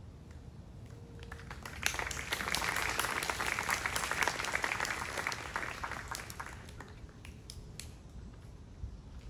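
Small audience applauding after the music stops. The clapping starts about two seconds in, dies away after about five seconds, and a few scattered claps follow.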